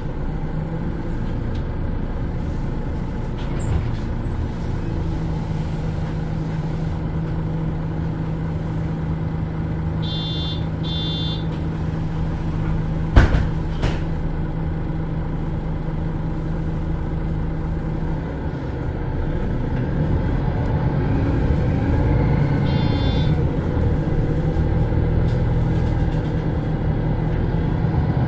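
MAN NL323 Lions City Euro 6 city bus running, its engine holding a steady hum for much of the time and growing louder from about two-thirds of the way through. A single sharp knock comes about halfway.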